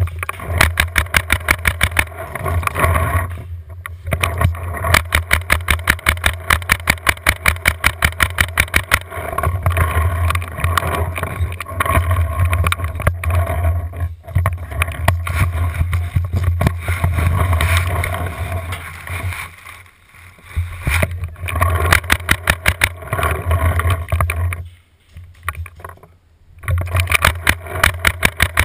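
Tippmann A5 paintball marker firing long, rapid strings of shots, several a second, with short pauses between strings, loud and close to the camera on its barrel.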